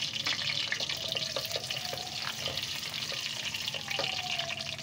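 Cumin seeds sizzling and crackling in hot oil in a metal kadhai, with a wooden spoon stirring and tapping against the pan.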